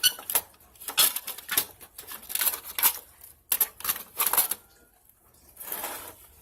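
Clicking and clattering of hard parts being handled: a quick run of sharp clicks and knocks in clusters, then a brief scraping sound near the end.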